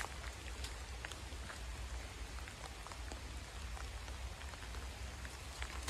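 Heavy rain falling steadily, with scattered raindrops ticking close by.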